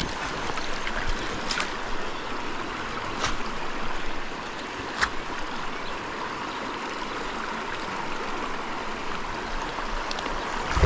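Steady rush of shallow river water flowing, with three brief clicks spaced about a second and a half apart.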